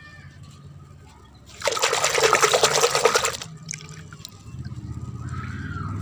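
Water splashing and pouring in a bucket for about two seconds, starting about a second and a half in. A low rumble comes up near the end.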